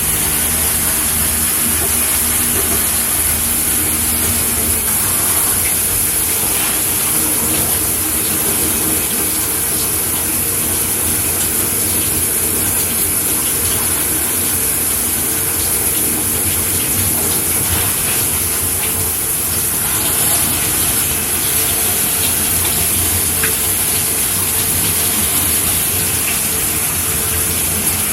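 Shower head spraying water steadily, a continuous hiss of falling water with no break or change.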